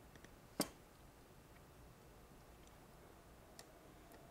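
Near-silent room tone broken by one sharp click about half a second in and a fainter tick later on: small handling sounds of a soldering iron tip and circuit board as leads are soldered.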